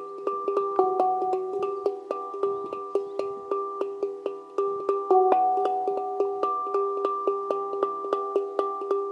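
Harmonic Art La Sirena handpan played with the fingertips in a quick, even rhythm of strikes, its notes ringing on into one another. It gets louder about five seconds in, where a new note is held ringing.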